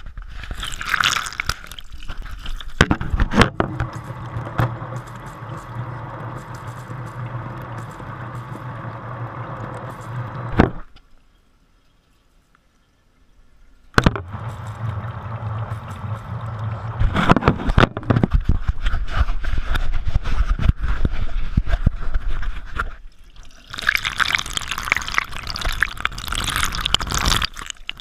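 Water from a kitchen sink's pull-down sprayer faucet rushing and splashing directly onto the GoPro HERO3 as it is washed. The water stops for about three seconds near the middle, then starts again.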